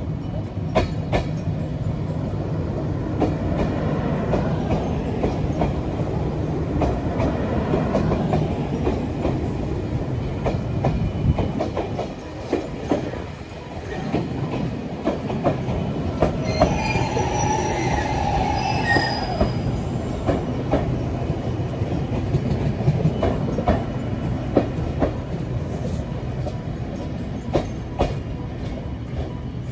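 A train running on rails, its wheels clicking steadily over rail joints, with a high-pitched wheel squeal held for about three seconds a little past halfway.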